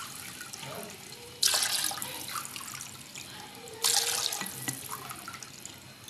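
Liquid sloshing and splashing as a ladle stirs chicken and vegetables in water in a metal pot. It comes in two sharp bursts about two and a half seconds apart.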